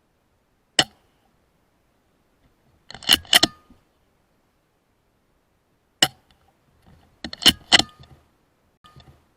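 Two shots from a Weihrauch HW100 PCP air rifle, each followed a second or two later by a quick run of metallic clicks as the side lever is cycled to load the next pellet.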